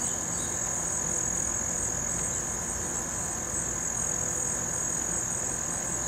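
Steady high-pitched insect song, one unbroken trill holding the same pitch throughout, typical of crickets singing.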